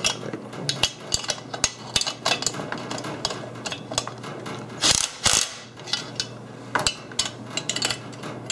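Steel socket and long extension clicking and clinking against a caster's nut and bolt as it is fitted and turned, with a louder metallic rattle about five seconds in.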